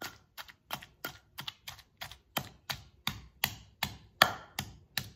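Stone pestle pounding raw tamarind pulp and red chilli paste in a stone mortar: steady strikes, about three a second.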